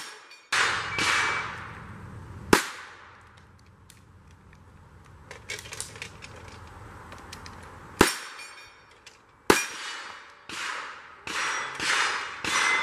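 Pistol shots fired at a Texas Star steel-plate target, some followed by the ring of steel being hit. Three shots come in the first few seconds, then a pause with faint clicks, then a quicker string of about six shots near the end.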